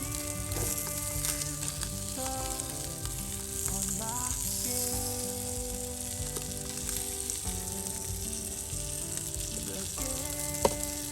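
Food sizzling steadily in a hot frying pan, with a steady hiss throughout.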